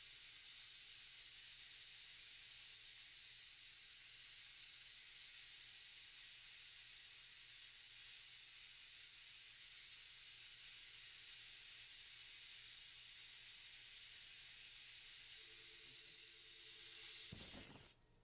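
Steady, faint hiss with a low hum beneath it, cutting off abruptly shortly before the end.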